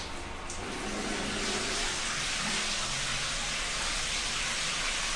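Running water fed from a gas water heater, a steady spraying hiss that builds over the first second or so and then holds, with a sharp click right at the start.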